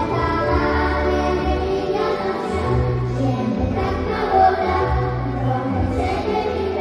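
A children's choir singing together into microphones over an amplified accompaniment with a deep bass line.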